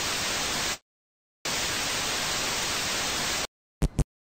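Television static sound effect: a steady white-noise hiss that cuts out abruptly, comes back after about half a second, then stops. It is followed by two short low thumps in quick succession.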